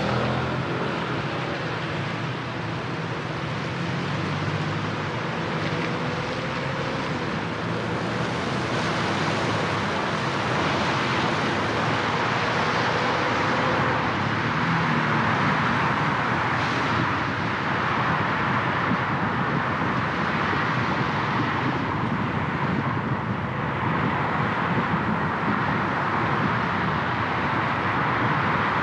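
Road traffic noise from a car driving on wet city streets: a steady rushing hiss of tyres and passing vehicles that grows somewhat louder about halfway through.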